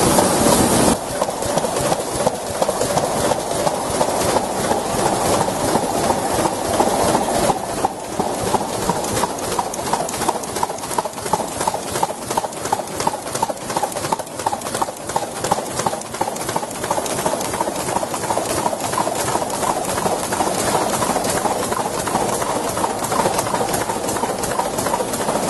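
Vega Altair folder-gluer running, with a rapid, regular clacking as corrugated box blanks are fed through and folded.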